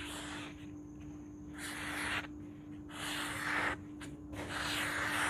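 Steel knife blade scraped in four repeated strokes, each a rasping swish of under a second, about one a second, over a faint steady hum.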